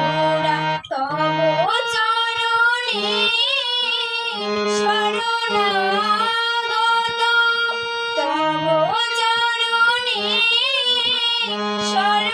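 Music: a female voice singing a devotional song, holding long notes with vibrato over a steady instrumental accompaniment.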